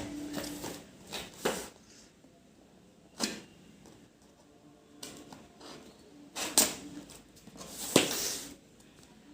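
A Dell KB216 keyboard and its packaging being handled: a handful of separate short knocks and rustles, the loudest about six and a half and eight seconds in.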